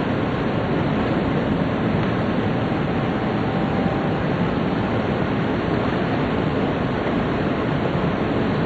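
Steady running noise of a Tōhoku Shinkansen Hayate train at speed, heard inside the passenger car. The level stays even throughout.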